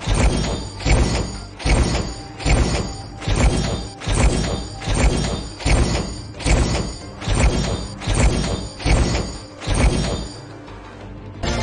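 Online slot game sound effects: a steady run of punchy hits, about one every 0.8 seconds, over game music, as each coin value is tallied into the win meter during a bonus payout. The hits stop about ten seconds in, leaving quieter music.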